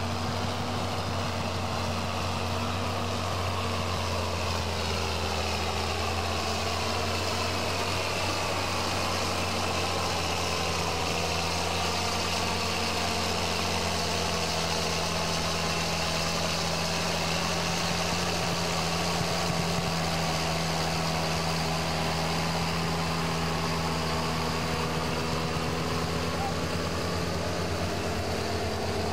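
John Deere farm tractor's diesel engine running steadily at low revs close by, as it is hooked up to the pulling sled.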